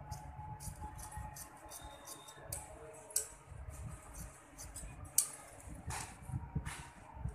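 Tailor's scissors cutting through blouse fabric in irregular runs of short snips, with a few sharper clicks of the blades, over the low rustle of the cloth being handled.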